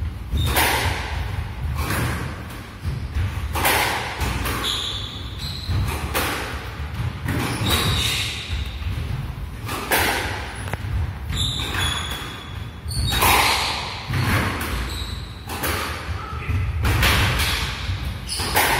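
Squash rally: the ball is hit by the rackets and smacks off the walls in sharp, echoing hits about once a second, mixed with short high squeaks from the players' shoes on the wooden court floor.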